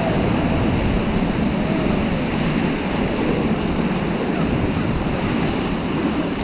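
Steady rush of fast river water during a rafting trip, with wind buffeting the microphone.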